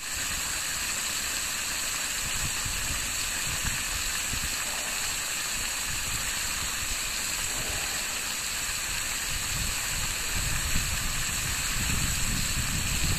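Water gushing out of the open end of a blue flexible hose and splashing over rocks: a steady rushing hiss.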